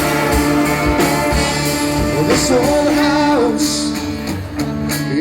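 Live country-rock band playing an instrumental stretch before the vocals: guitars over a drum beat, with a sliding melodic line in the middle.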